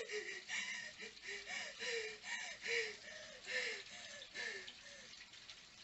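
A woman's panicked, breathless sobbing: short whimpering cries with gasping breaths, about two a second, fading near the end.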